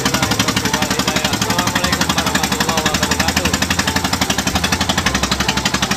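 Fishing boat's engine running steadily under way, with a fast even beat of about a dozen pulses a second.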